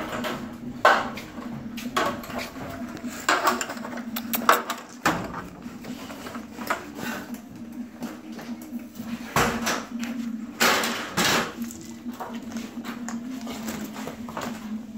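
Scattered knocks, clatter and rustling of work and handling on a building site, over a steady low hum, with a longer rustle about ten seconds in.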